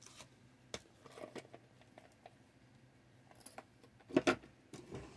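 Small handling noises on a tabletop as tools and wooden model-kit parts are picked up and set down: a few light taps and clicks, then two louder knocks about four seconds in and another at the very end.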